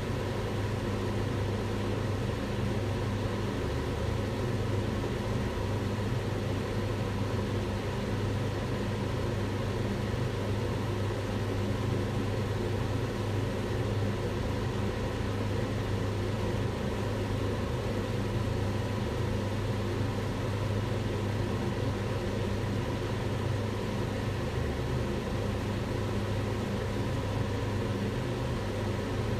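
Kitchen range hood extractor fan running steadily: a constant whooshing rush of air over a low motor hum.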